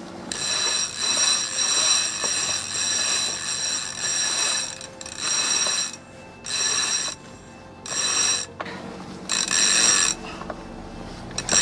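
A rope on a sailing yacht squealing as it runs through its deck fittings while being hauled in by hand: one long high-pitched squeal, then a run of shorter squeals, one for each pull, with short pauses between them.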